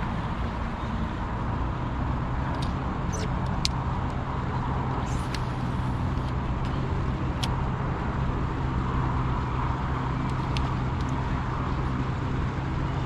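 A boat motor hums steadily over a constant background hiss, with a few short sharp clicks in the middle.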